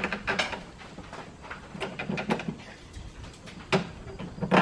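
Irregular knocks and clatter of work at a roof eave from a boom lift basket, with a quick run of clicks at the start and two loud sharp knocks near the end.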